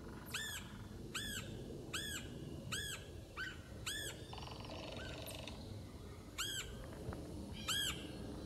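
Red-headed woodpecker calling: a run of repeated calls, each rising then falling in pitch, about one every three-quarters of a second, with a pause in the middle and two more calls near the end.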